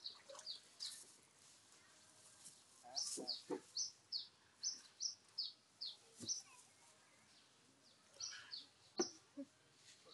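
A bird chirping in a run of short, high, falling notes, about three a second, with a few faint knocks and a sharper one about nine seconds in.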